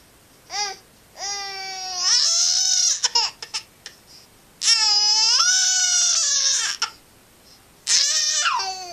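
Baby fussing and crying to be picked up: a short call, then long wailing cries with short sobbing catches between them, the last starting near the end.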